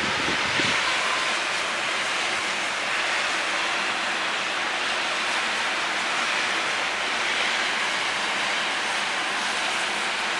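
Steady hiss of street traffic, tyres running on a wet, snowy road.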